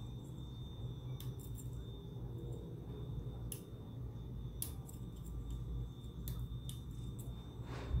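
Small, sharp metallic clicks at irregular intervals as a lock pick tool works inside a brass Yale 6-pin pin-tumbler cylinder, over a steady low hum.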